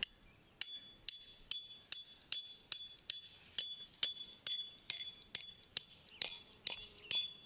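A steel claw hammer striking the head of a 12-inch steel sand-and-snow wedge tent stake about twice a second, each blow a sharp metallic clink with a high ring, as the stake is driven into hard, compacted dirt. The blows start about half a second in.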